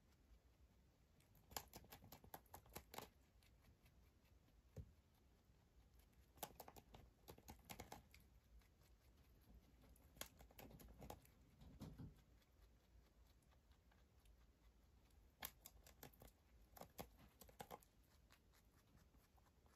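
A rabbit chewing cabbage leaf: faint, quick crunching clicks in four short bouts a few seconds apart.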